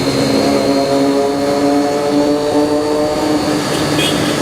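Triumph Daytona 675R's three-cylinder engine running at a steady pitch while under way.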